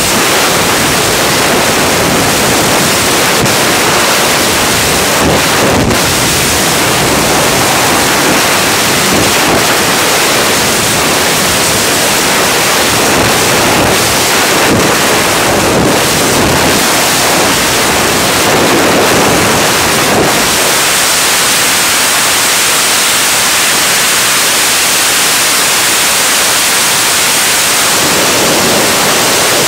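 Loud, steady rush of freefall wind buffeting the microphone of a skydiver's head-mounted camera.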